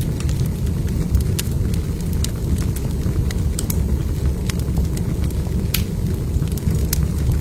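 Log fire burning in a fireplace: a steady low rumble of the flames with frequent sharp crackles and pops from the burning wood.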